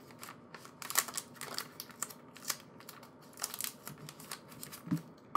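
Paper, card and plastic merchandise being handled and unpacked: irregular light taps, clicks and rustles.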